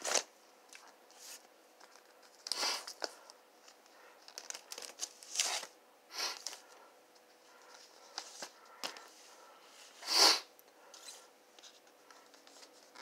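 Vinyl LP jackets in plastic sleeves and shrink-wrap being flipped through one at a time: a series of short plastic swishes and rustles, the loudest about ten seconds in.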